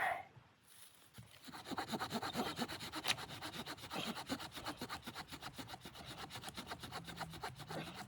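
Wood being sawn by hand: a quick, even rasping rhythm that starts about a second and a half in, after a single knock at the start.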